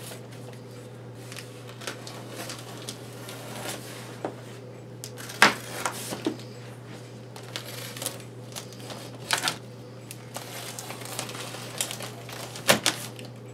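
Packing tape on a large cardboard box being slit and worked open with a blade: scattered crackles, scrapes and clicks of tape and cardboard, the sharpest click about five and a half seconds in. A low steady hum lies under it.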